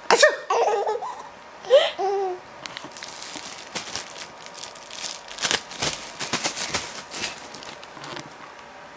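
A small child's short laughs and vocal sounds during the first two seconds or so, then a run of soft clicks and rustles.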